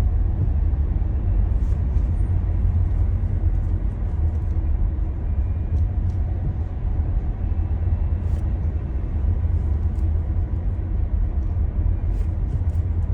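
Steady low road and tyre rumble of a moving Tesla Model Y, with a few faint clicks scattered through it.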